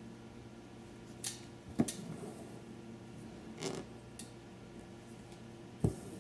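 A needle punching through fabric stretched taut in an embroidery hoop, giving a few sharp pops, and embroidery thread drawn through the fabric with a short rasp about midway, while satin stitches are worked.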